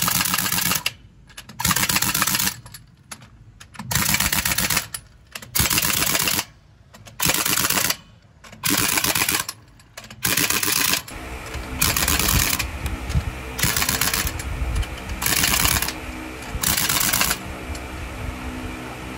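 Pneumatic impact wrench driving the lug nuts on a truck wheel in about eleven short bursts of around a second each, as the nuts are run down to refit the wheel. From about eleven seconds in a steady low hum sits under the bursts.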